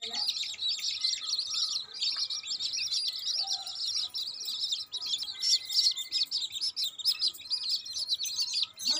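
Domestic chicks peeping continuously, a dense run of high-pitched cheeps overlapping one another.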